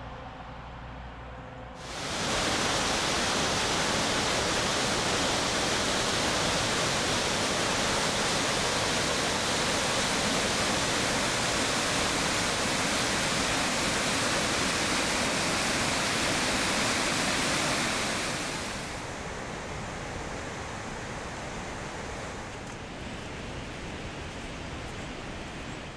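Waterfall: a loud, even roar of falling water that sets in about two seconds in and drops away about eighteen seconds in to a fainter, duller hiss.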